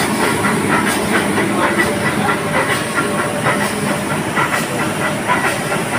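Nilgiri Mountain Railway passenger coaches rolling past: a steady rumble and hiss, wheels clicking over rail joints about once a second, and many short metallic squeaks.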